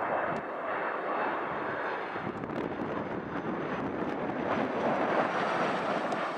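McDonnell Douglas MD-82 airliner passing close just before touchdown, its rear-mounted Pratt & Whitney JT8D turbofans making a steady jet noise, with wind buffeting the microphone.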